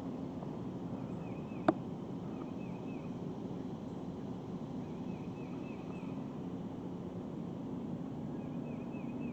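Outdoor ambience with a steady low rumble, over which a small bird repeats short runs of quick chirps several times. A single sharp click sounds about two seconds in.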